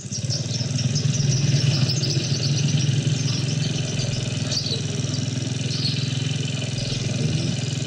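Motor scooter's engine running steadily at low speed as the bike rolls slowly along, heard close from the rider's handlebar camera.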